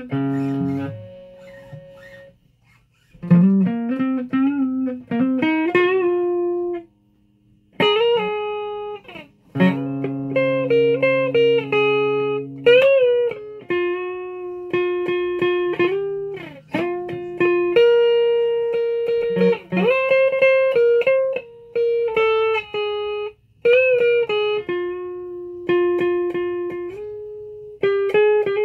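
Guitar played with picked single notes and a few short chords, each note struck and left to ring, with brief pauses between phrases.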